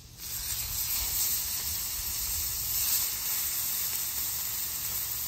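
Chuck eye steaks sizzling on a hot, oiled flat-top griddle. The hiss starts suddenly as the first steak goes down and then runs steadily while the second is laid beside it.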